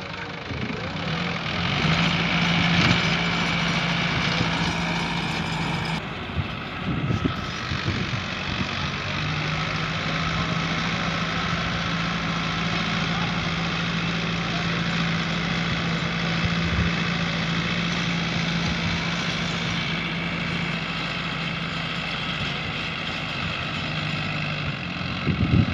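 Sonalika tractor's diesel engine running steadily under load while it pulls a rotavator tilling the soil, a continuous drone with a short dip about six seconds in.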